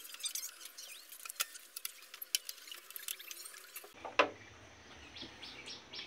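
Faint, irregular metallic clicks and ticks from hands working on a motorcycle's front fork and fender, with one sharper knock a little after halfway.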